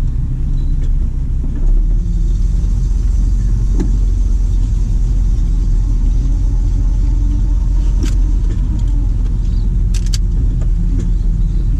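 Car engine running with a steady low rumble, heard from inside the cabin as the car backs slowly down a driveway. The rumble grows a little about two seconds in, and a few sharp ticks come later.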